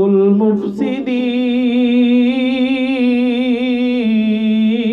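Male voice in melodic Quran recitation (tilawat), drawing out one long held note with a slight wavering ornament, which steps down in pitch about four seconds in.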